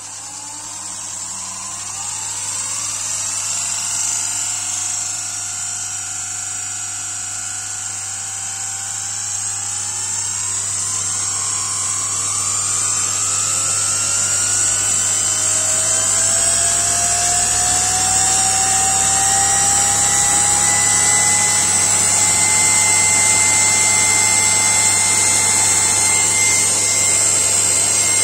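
High-current brushed DC motor running up to speed on a test bench: a whine that climbs in pitch and grows louder over the first twenty seconds or so, then holds steady, over a high hiss and a steady low hum.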